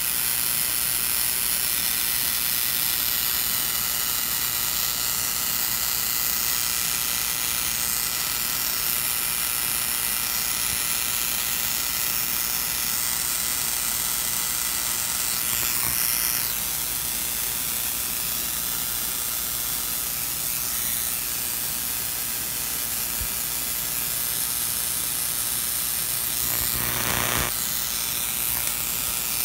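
High-voltage collector discharging through a gas discharge tube, giving a steady, high hiss of rapid repeated sparking, with a louder burst of about a second near the end.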